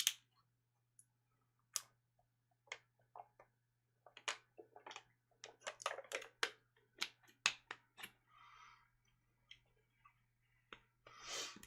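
Faint, irregular small clicks and handling noises, with a soft breath near the end, over a steady low electrical hum.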